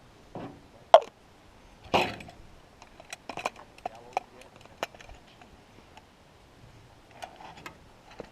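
Brief bursts of a person's voice, the loudest about a second in, followed by a quick run of sharp clicks and knocks from handled gear.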